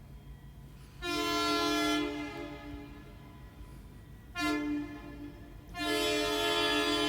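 Multi-chime train horn sounding a chord in separate blasts: a long blast that fades, a shorter one, then another long one starting near the end, in the pattern of a grade-crossing signal.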